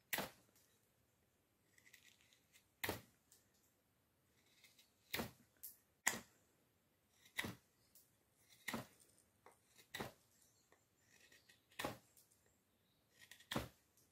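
Bark River Bushcrafter knife paring shavings off a beech wood handle blank: about ten short, sharp slicing cuts, one every second or two, with faint scraping between strokes.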